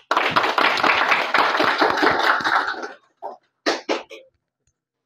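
A room full of people applauding for about three seconds, then a few last scattered claps.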